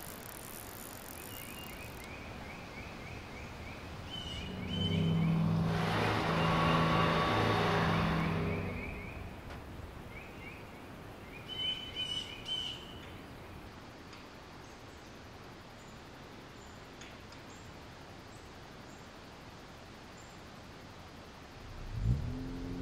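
Quiet lakeside ambience with short bird chirps now and then. In the middle a louder sound with a low hum swells and fades over a few seconds, and near the end a car engine comes in with a rising pitch.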